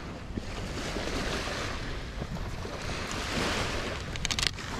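Wind buffeting the microphone over the wash of sea water. A short run of clicks or knocks comes about four seconds in.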